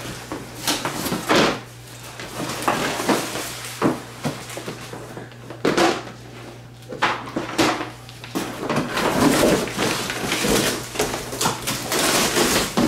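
Cardboard box and loose plastic wrap being handled: irregular rustling and crinkling with many sharp knocks and flaps as rubberized floor liners are pulled out of the box and set down on a tile floor.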